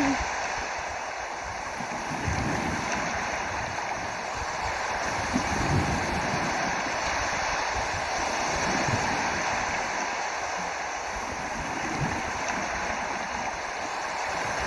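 Steady rushing of moving water, with low uneven rumbles of wind on the microphone underneath.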